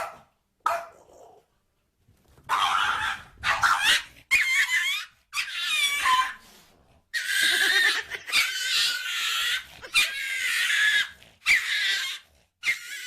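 A cat making a run of loud, drawn-out yowling meows, about eight calls, each bending up and down in pitch, starting a couple of seconds in.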